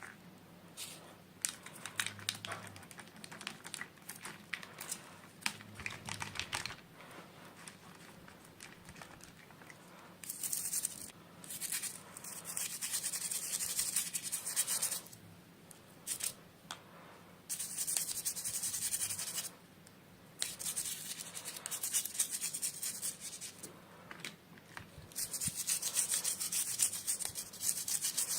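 Small toy packaging being handled and opened. Light taps and clicks come first, then several spells of scratchy rubbing, each a few seconds long with short pauses between.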